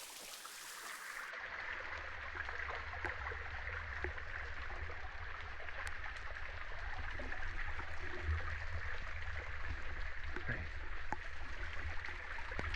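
Steady rush of cascading water from a waterfall and stream, with a low rumble underneath and a few faint clicks.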